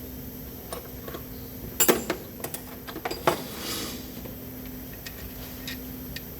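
Metal hand tools clinking and knocking against car parts: a scattered handful of sharp clinks, the loudest cluster about two seconds in, over a faint steady hum.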